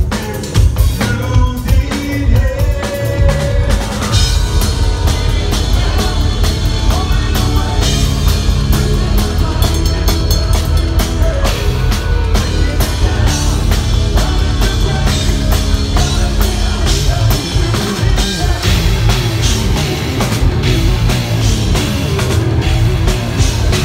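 Live metal band playing loud: a double-bass drum kit pounding under distorted guitar and bass, with sung vocals.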